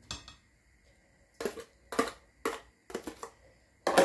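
Fork and plastic food container knocking as chopped red onion is tapped out into a glass mixing bowl: a series of about seven sharp taps roughly half a second apart, the loudest near the end.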